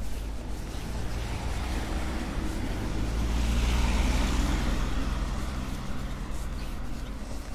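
A car driving past on the road, its tyre and engine noise swelling to a peak about halfway through and fading away, over a steady low rumble.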